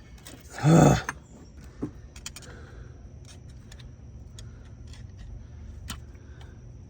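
Hand tools and metal parts clicking and clinking while the thermostat is worked out of its housing in a Mazda RX-8's engine bay, with one short loud burst of noise just under a second in.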